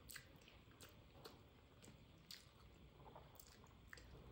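Faint wet eating sounds of rice and curry eaten by hand: fingers squishing the food, then a mouthful taken near the end, with scattered sharp little clicks.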